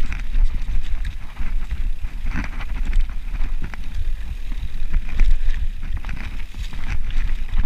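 Mountain bike riding fast along a dirt singletrack: wind buffeting the camera microphone in a steady low rumble, with scattered clacks and rattles from the bike over the rough trail.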